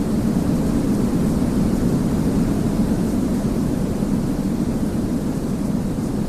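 Steady masking noise used as a focus background, with most of its weight in the low range so it comes across as a deep, even rumble rather than a bright hiss. It holds without any change.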